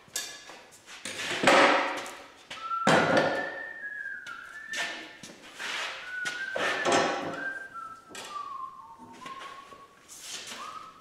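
A man whistling a tune, held notes stepping up and down in pitch. Under it are clunks and thuds of tools being set down on a wooden bench top, a straightedge guide and a circular saw, with the loudest knocks in the first few seconds.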